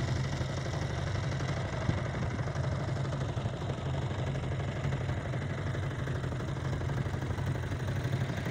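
Boat engine running steadily, a continuous low hum.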